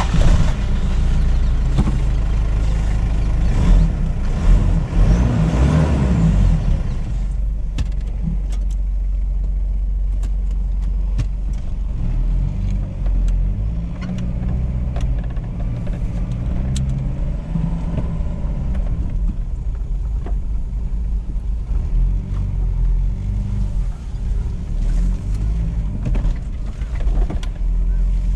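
Inside the cab of a 1995 Toyota Land Cruiser KZJ78 as it drives a rough dirt track, its 3.0-litre 1KZ-TE turbo-diesel gives a deep, steady rumble, fuller and louder for the first seven seconds or so. Short knocks and rattles from the body come through now and then.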